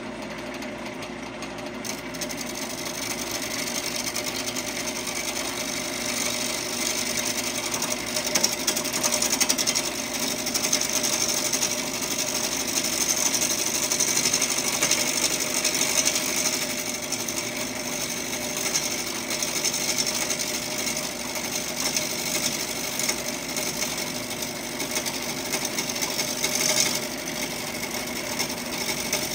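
Wood lathe running with a bowl gouge cutting a glued-up blank of mixed hardwoods: a steady motor hum under the hiss of the cut, which builds from about two seconds in.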